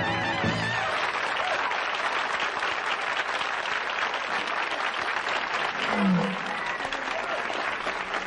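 Studio audience applauding steadily as the singer's held note and the band cut off about a second in; a short vocal cry rises above the clapping about six seconds in.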